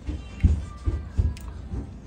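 Background music with a low, thudding beat.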